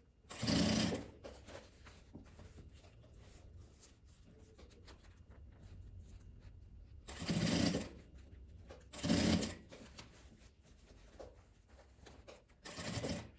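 Industrial straight-stitch sewing machine running in four short bursts of stitching, each under a second, one near the start and three in the second half, with quiet pauses between as it sews folded bias binding onto an oven mitt.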